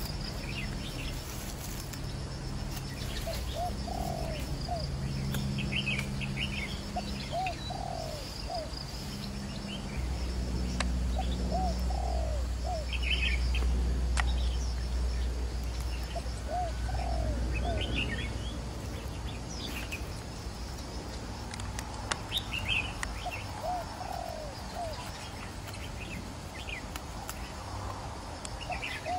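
A dove cooing, a short phrase of a few rising-and-falling notes repeated every few seconds, with small birds chirping. A low rumble sits underneath, louder through the middle.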